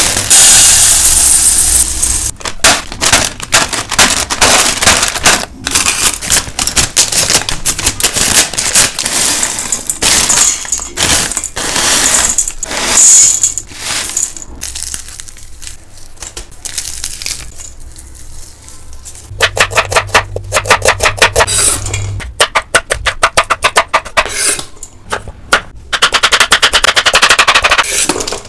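Dry snack food handled in a steel bowl: a plastic packet of puffed rice cut open with scissors, then aloo sev and other crisp fried namkeen poured in with a dry pattering hiss. Crisp crackles and clicks throughout, with two stretches of fast, even crackling in the second half.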